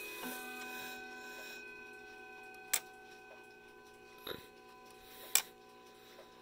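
Howard Miller 612-437 mantel clock's chime rods ringing: a hammer strikes one more note just after the start, and the tones slowly die away. Two sharp clicks come later, about two and a half seconds apart.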